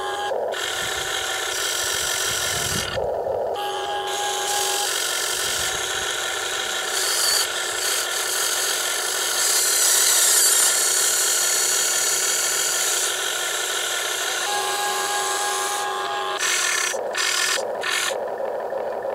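Electric motors and plastic gearboxes of a Huina radio-controlled wheel excavator whining and grinding as the boom, arm and bucket move, with brief pauses between movements. About ten seconds in the sound turns louder and hissier while the bucket digs into the dirt.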